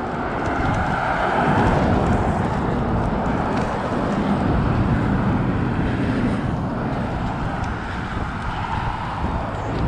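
Cars passing on an adjacent busy road, heard through a steady rush of heavy wind noise on the microphone of a moving bicycle.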